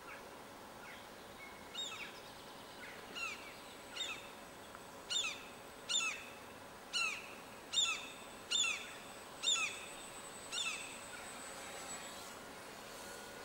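Common gulls giving a series of short, downward-slurred alarm calls, about one a second, that stop about eleven seconds in.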